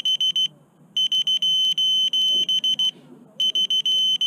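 Electronic buzzer of a landed FPV racing quadcopter sounding a loud, high-pitched alarm. It plays runs of rapid beeps about two seconds long, separated by half-second gaps.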